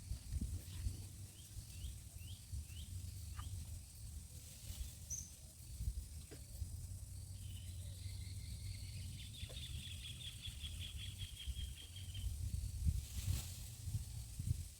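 Wind rumbling on the microphone while small birds call: a run of short descending chirps about a second in, then a fast high trill lasting about three seconds, starting some nine seconds in.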